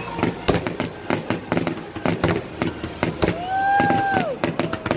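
Fireworks going off in a quick, irregular series of bangs and crackles. Past the middle there is a drawn-out whistling tone lasting about a second, which drops away at its end.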